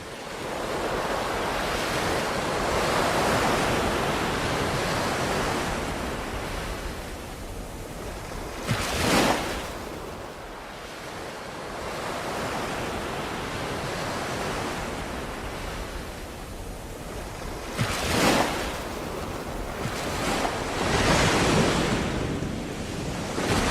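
Ocean waves washing in: a steady rush of surf that swells into louder breaking waves about 9 seconds in, again near 18 seconds, and around 21 seconds.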